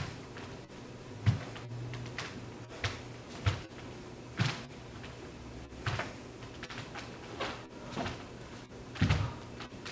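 Bare feet stepping, pivoting and stamping on a hardwood floor during a taekwondo form, with the sharp snap of the uniform on strikes and kicks: a run of separate thuds and swishes about a second apart, one or two at a time.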